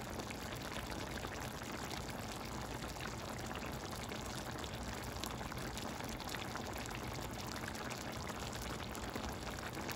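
Chicken cacciatore's tomato sauce simmering in a pan: steady bubbling with many small pops.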